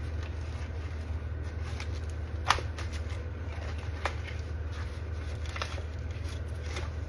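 A few light, separate clicks of broken ceramic strike-face fragments being handled, the loudest about two and a half seconds in, over a steady low hum.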